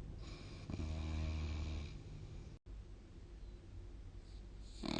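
A person snoring in sleep: one low, drawn-out snore lasting about a second and a half near the start, followed by quiet breathing.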